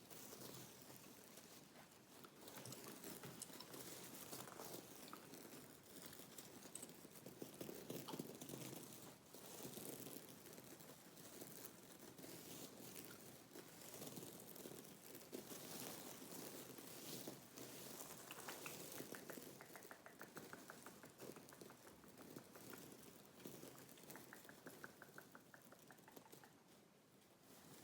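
Close-miked ASMR scratching: fingernails working over a textured surface in a dense crackly scratching. Twice, about two-thirds in and again near the end, it turns into a run of rapid, even fine ticks.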